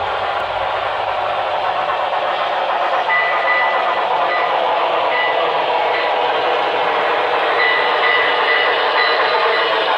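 HO scale model trains running on a layout, a steady rushing noise of wheels and sound-equipped locomotives, as a Broadway Limited N&W 2-8-8-2 steam locomotive passes close by. A few short high-pitched tones come and go.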